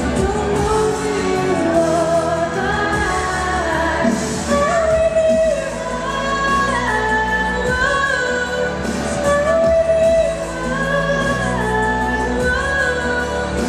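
A young woman singing a pop ballad live over a backing track through a public address system.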